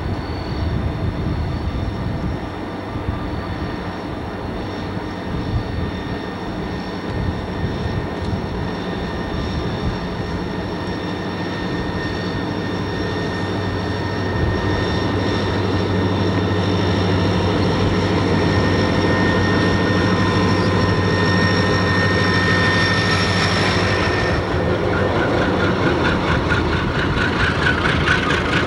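Diesel-electric freight locomotive running as it approaches and passes beneath, with a steady engine tone that grows louder over the first half. Near the end, freight cars roll by with a fast rhythmic clatter.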